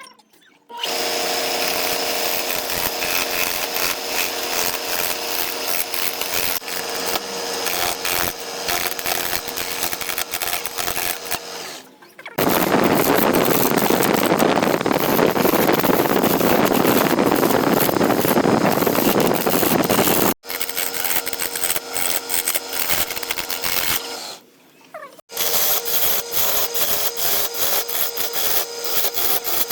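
Wood lathe running while a hand turning tool cuts the spinning wood. It comes in several clips joined by abrupt cuts, with a steady motor hum under the scraping. In the middle stretch it becomes a louder, even hiss.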